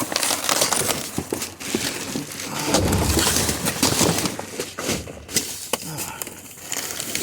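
Junk being shifted and rummaged through in an open-top dumpster: irregular clattering, scraping and rustling of debris, with a heavier low thud about three seconds in.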